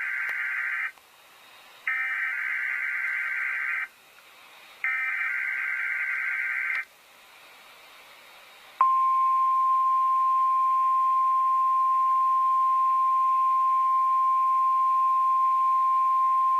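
NOAA Weather Radio SAME alert header for a Required Weekly Test: three bursts of buzzy data tones, about two seconds each with a second's gap between them, then after a short pause the steady single-pitched 1050 Hz alert tone starts about nine seconds in and holds to the end.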